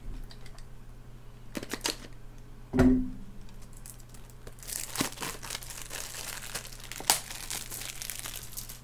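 Crinkling and tearing of packaging around a Blu-ray case being handled, with a single knock about three seconds in.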